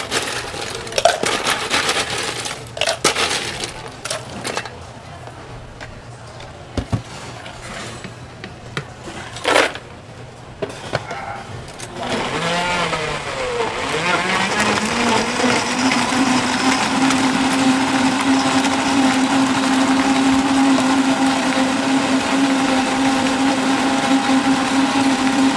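A few sharp knocks and clatters as the plastic blender jar is loaded and the lid set on. About halfway through, a commercial countertop blender starts: its pitch climbs for a couple of seconds, then it runs with a steady whine as it blends fresh fruit and ice into juice.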